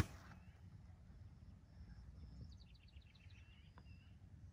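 A single sharp click of a sand wedge striking a golf ball off the turf right at the start. Afterwards faint birds chirp in quick repeated notes, about two and a half to four seconds in, over a low steady rumble.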